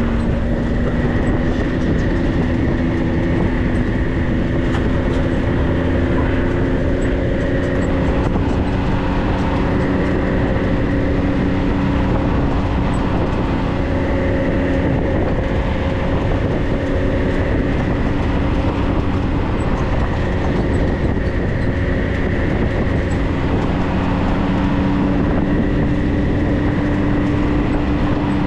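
4x4 vehicle driving steadily: a constant engine and drivetrain drone with humming tones that drift slowly up and down in pitch, over heavy rumble.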